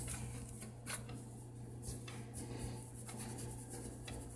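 Hands working seasoning into raw steak in a glass bowl: faint rubbing with a couple of light clicks, over a steady low hum.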